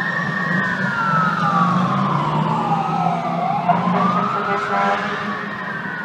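Fire engine siren wailing, its pitch sweeping slowly up and down about every three seconds, over a low steady rumble.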